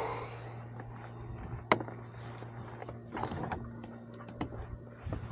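Sharp small clicks and knocks of gear being handled, the loudest a single crisp click about two seconds in, with a cluster of softer knocks a little later, over a steady low hum.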